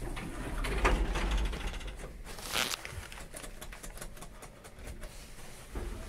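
Lift car doors sliding open with a low rumble, then a short burst of hiss about two and a half seconds in and a few light clicks.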